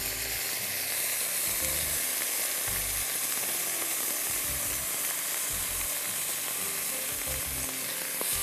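Washed raw rice sizzling in hot oil in a wok with sautéed onion, garlic and thyme, a steady frying hiss, with a spatula stirring it through the pan.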